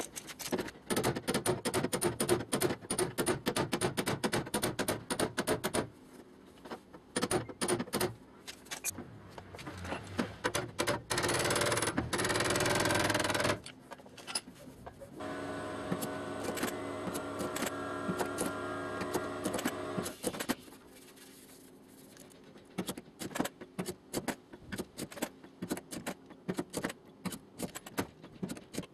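Bodywork on a steel car door: a run of rapid light taps, then a loud rushing power-tool sound for a couple of seconds, a motor humming steadily for about five seconds, and scattered taps near the end.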